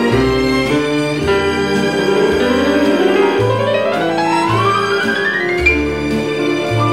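Instrumental background music with violin and piano over a steady bass, with a rising run of notes through the middle.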